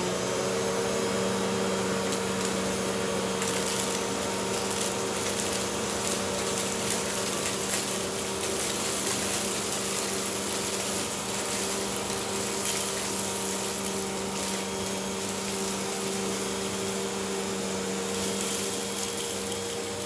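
Hoover WindTunnel T-Series Purely Clean upright vacuum running at full speed, a steady motor hum under a loud rush of air. Now and then there are brief rattles as sunflower seeds and shredded paper are sucked up.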